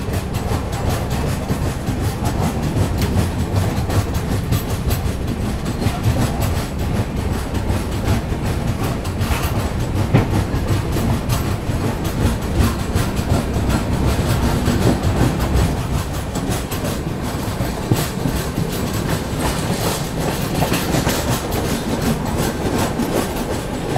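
Express passenger train running on the track, heard at an open coach door: a steady rumble of wheels on rail with a running clickety-clack of wheels crossing rail joints.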